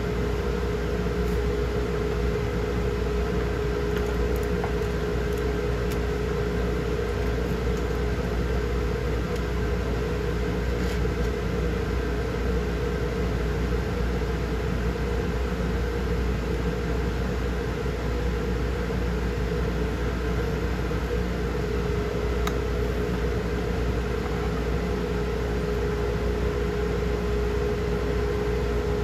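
Steady mechanical hum of a running motor, with one constant mid-pitched tone and a low rumble that never change.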